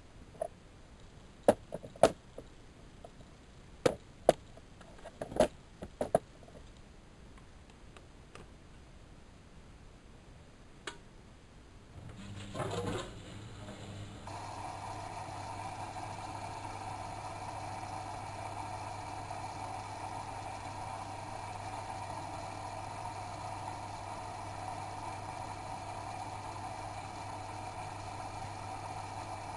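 AEG Electrolux Lavamat L6461 washing machine starting its cycle: a series of sharp clicks over the first several seconds, then about twelve seconds in a low hum sets in, and from about fourteen seconds the machine runs with a steady, even sound.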